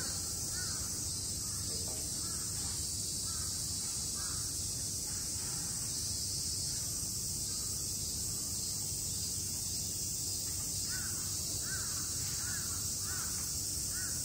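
A steady, high-pitched chorus of summer insects, typical of cicadas, runs throughout. Over it a crow caws in short series: a few calls near the start, then a run of about eight caws near the end.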